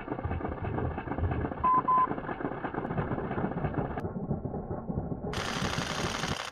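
Muffled, slowed-down outdoor sound, a dense low rumble and rustle, with two short beeps about two seconds in; the sound opens up to full range near the end.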